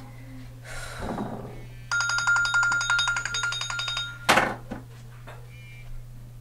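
Mobile phone ringtone: a rapid electronic trill that rings for about two seconds and then stops. A short, sharp noise follows right after it.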